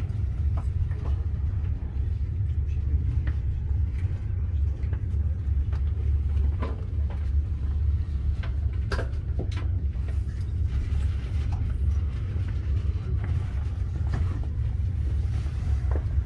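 Steady low rumble of a passenger train rolling along, heard from inside the carriage, with occasional faint clicks and knocks.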